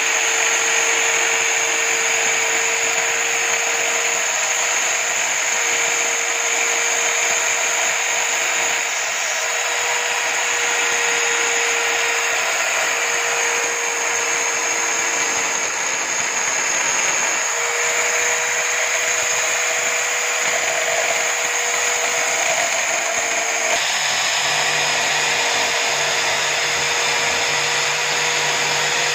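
Electric drill mounted in a stand as a homemade drum sander, its motor running at a steady whine while the small sanding drum rubs along the edges of fibreboard cut-outs.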